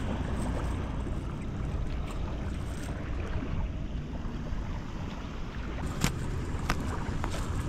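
Sea waves washing against shoreline rocks, with wind buffeting the microphone as a steady low rumble; three short sharp clicks come about six, six and a half and seven seconds in.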